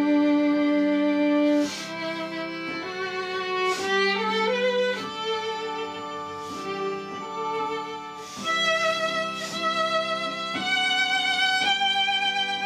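Background music: a violin playing a slow melody of long held notes, some with vibrato, over a sustained accompaniment.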